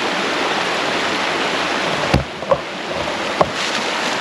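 Creek water rushing over small rapids and cascades, a steady loud rush. Three short knocks come a little past the middle.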